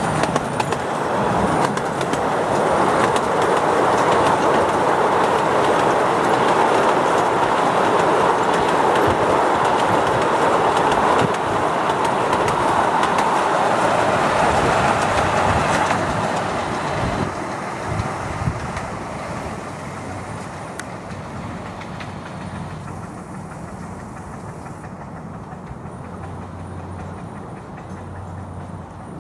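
Miniature railway train of coaches rolling past on the track, a loud steady rumble of wheels on rail that fades gradually over the second half as it moves away.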